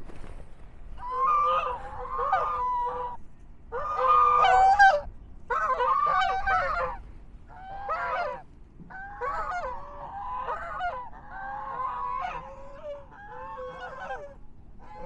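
White Chinese geese honking: a run of repeated calls in several bouts, starting about a second in and going on to the end, some calls overlapping.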